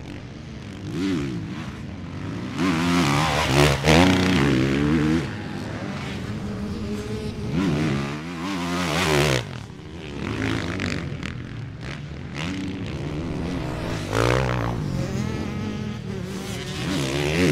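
Honda CRF450R motocross bike's four-stroke single-cylinder engine revving hard and backing off again and again, its pitch rising and falling through gear changes. The loudest bursts of throttle come about three seconds in and again about eight seconds in.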